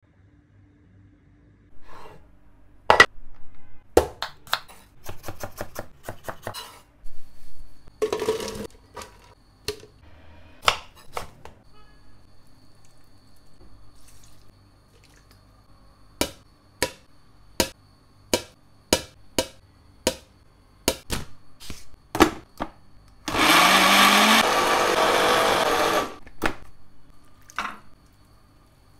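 A run of sharp knocks and clicks from ingredients and kitchenware being handled. Then, near the end, a countertop blender with a plastic jug runs for about three seconds, its motor rising in pitch as it spins up, grinding onion and garlic into a paste.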